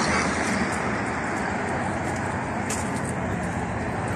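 Steady road traffic noise: cars driving on the road below the footbridge, a continuous hum with no single vehicle standing out.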